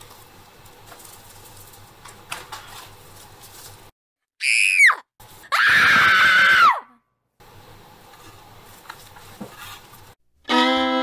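A high-pitched scream in two parts: a short shriek falling in pitch, then a longer held scream that drops off at its end. Faint bench handling sounds come before it, and fiddle music starts near the end.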